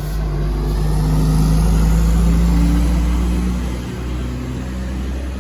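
Diesel intercity coach bus passing close by, its engine and tyre noise swelling to a peak about two seconds in and then easing off.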